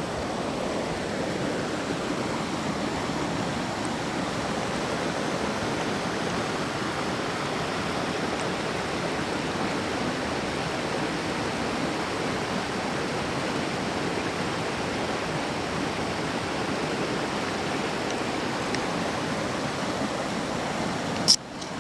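Steady rushing of a stream's water flowing over rocks, an even noise that does not change. A sharp click near the end.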